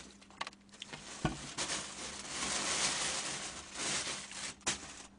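Plastic delivery bag rustling and crinkling as it is handled and put away, with a couple of soft knocks, about a second in and near the end.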